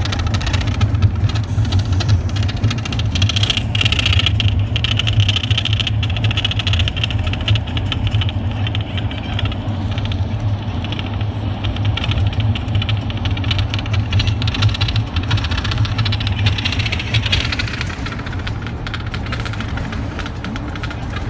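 Winnebago Navion slide-out room moving in or out, squeaking and rattling as it travels, over a steady low hum. The squeak is the noise the owner is trying to trace, and it fades out near the end.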